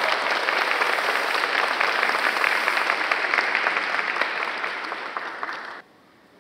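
Audience applauding: a dense, even patter of many hands clapping that thins slightly and then cuts off abruptly near the end.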